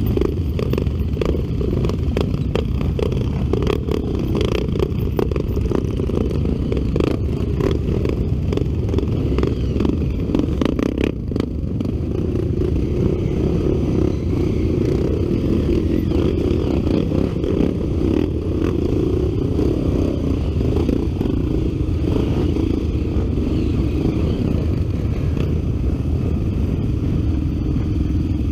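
Honda Tornado trail motorcycle's single-cylinder four-stroke engine running under load on a rough dirt trail, with frequent clattering knocks from the bike over the ground. About twelve seconds in the knocks thin out and the engine settles to a steadier pitch.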